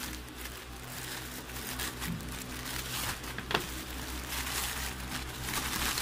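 Plastic courier mailer bag crinkling as it is cut with scissors and pulled open by hand, with a sharper click about three and a half seconds in, over a low steady hum.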